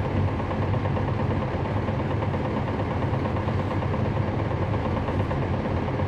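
A NABI 416.15 transit bus's Cummins ISL9 diesel engine running steadily, heard from on board inside the bus, with no revving or change in pitch.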